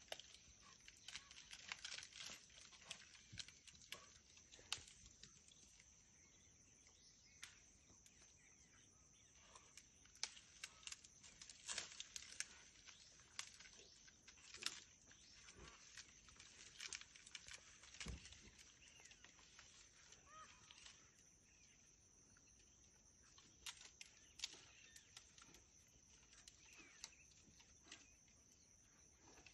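Faint, irregular snaps and crackles of twigs and bark as a sloth bear climbs through a tree's branches, over a steady high hum.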